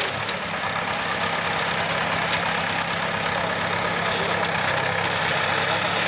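Small four-wheel tractor's engine running steadily as it pulls a potato digger through the soil, mixed with the clatter of the digger's shaking sieve.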